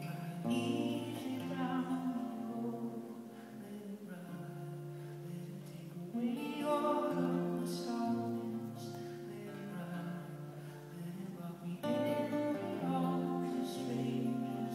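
Live acoustic guitar music: chords strummed and left to ring in slow phrases, each starting louder, about every five to six seconds.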